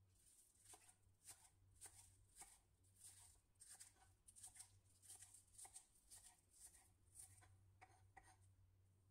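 Faint, quick taps of a kitchen knife slicing spring onion against a wooden cutting board, about two to three cuts a second, over a low steady hum.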